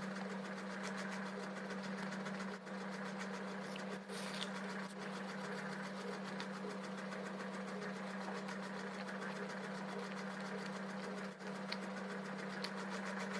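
A steady machine hum with a fast buzzing rattle, unbroken, with a few faint ticks.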